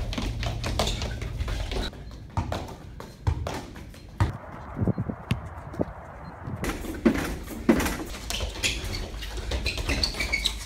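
Quick footfalls, shoe scuffs and thuds of athletes doing agility and ball drills on artificial turf: a run of irregular sharp taps.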